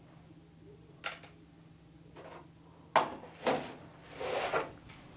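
Handling noises of small objects on a wooden table: a sharp click about a second in, a sharper knock at three seconds, then rustling and scraping.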